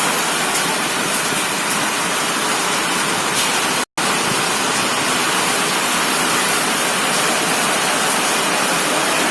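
Heavy rain pouring down hard, a steady loud rush of falling water. It breaks off for a split second about four seconds in, then carries on.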